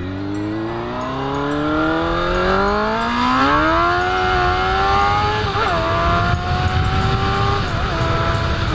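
Suzuki GSX-R750 inline-four motorcycle engine accelerating hard, its pitch climbing steadily for about four seconds. It then upshifts twice, the revs dipping briefly near the middle and again near the end.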